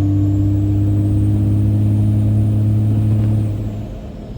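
Cab of a 5.9L Cummins turbo-diesel pickup at highway speed: a steady, loud engine drone under light boost with a faint high turbo whistle, both dropping away about three and a half seconds in as the throttle is let off. Little tire road noise is heard over it.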